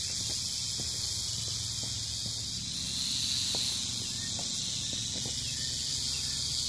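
Western diamondback rattlesnake rattling its tail in a steady high-pitched buzz, a defensive warning.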